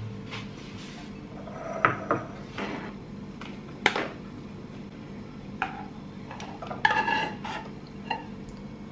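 A metal spoon scrapes cooked noodles out of a saucepan into ceramic bowls, with several sharp clinks of the spoon and pot against the bowls; one clink a little before the end rings briefly.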